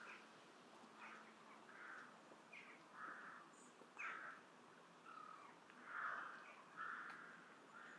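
Crow-family birds cawing: a string of short, harsh calls at irregular intervals, some overlapping, with a few shorter, sharper calls among them. The loudest caws come about six seconds in.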